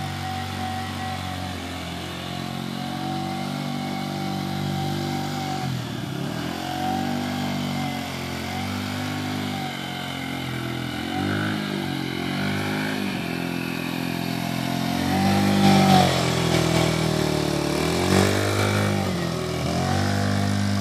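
Kawasaki KFX50 youth ATV's 49cc four-stroke engine running while being ridden, its pitch repeatedly dropping and climbing again as the throttle is eased off and opened. It is loudest in the last few seconds as it passes close by.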